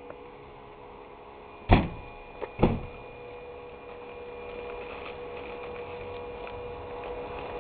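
Two sharp knocks about a second apart, over a faint steady hum.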